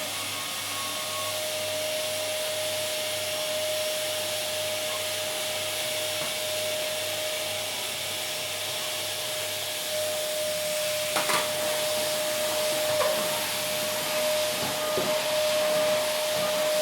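Vacuum cleaner running steadily: an even rushing hiss with a steady motor whine. A few light knocks and clicks come in the second half.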